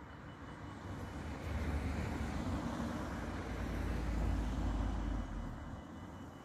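Cars driving past on a brick-paved road: a van and then a hatchback, engine rumble and tyre noise on the bricks rising to a peak about four to five seconds in and then easing off.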